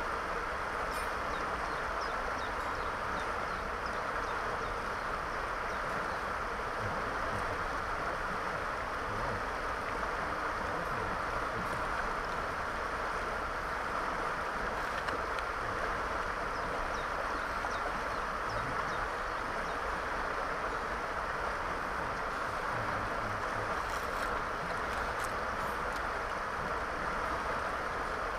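River water rushing steadily, an even hiss that holds at one level throughout.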